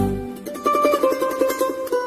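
Background music on plucked strings, with quickly repeated notes; the bass drops out shortly after the start.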